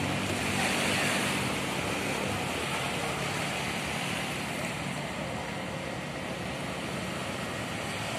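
Small waves washing up and draining back on a sandy beach, a hissing surge every few seconds. A faint low hum is heard underneath and fades after about a second.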